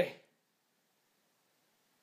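The tail of a man's shouted word, which ends within the first fraction of a second, then near silence.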